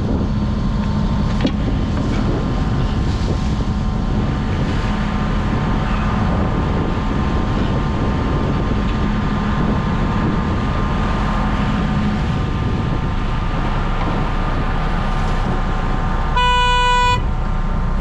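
Fishing boat's engine running steadily under wind and water noise, with one short horn toot a little before the end.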